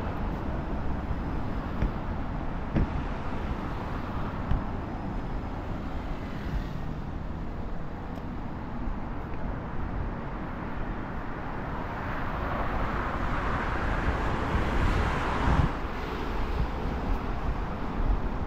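Road traffic: a steady rumble of cars on a main road. One vehicle grows louder and passes close about two-thirds of the way through.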